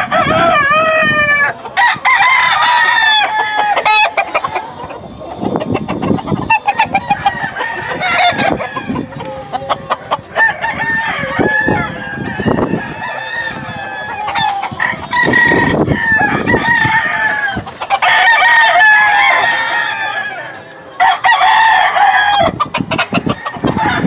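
Gamefowl roosters crowing, one call after another and often overlapping, from several birds in the pens.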